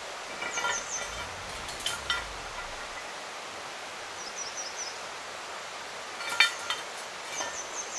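Clear mountain stream rushing steadily, with a few sharp clinks (the loudest about six and a half seconds in). A small bird chirps in quick runs of three or four high, falling notes.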